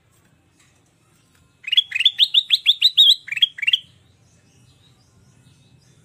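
Ruby-throated bulbul (kutilang emas) singing a quick run of about a dozen short, rising, chirpy notes, about five a second, starting about a second and a half in and lasting about two seconds.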